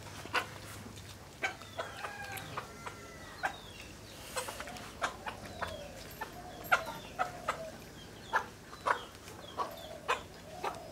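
Chickens clucking, with short pitched calls mixed among many short sharp clicks or taps.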